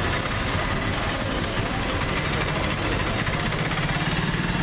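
Town street traffic of auto-rickshaws and cars, engines running and idling, with a steady low engine hum that grows louder about halfway through.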